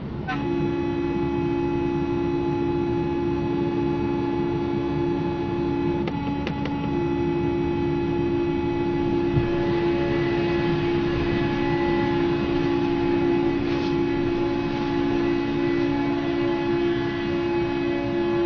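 Vehicle horn held down continuously, a steady two-note blare over road and engine noise, broken off briefly about six seconds in.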